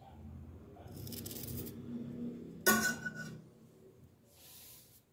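Small scraping and rustling noises of a knife cutting a raw amla (Indian gooseberry) by hand. About halfway through, a sharp short clink rings out, as a piece or the knife touches the steel plate.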